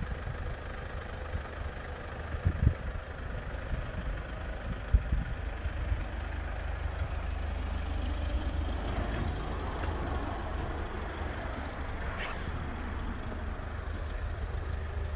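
Steady low rumble of motor vehicle noise, with two dull knocks a few seconds in and a brief hiss about twelve seconds in.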